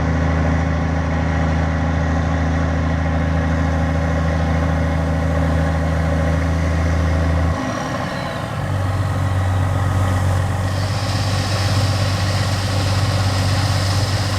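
Diesel engines of heavy harvest machinery running steadily. About halfway through, the engine note changes abruptly to a different one, and a high whine joins near the end.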